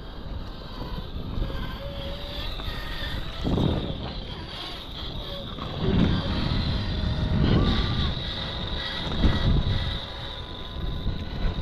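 Small electric motor and gears of an RLAARLO MK-07 1/7-scale 4x4 RC Jeep crawler whining as it drives over rock, the pitch wavering with the throttle. Several louder low rumbles of wind buffet the microphone.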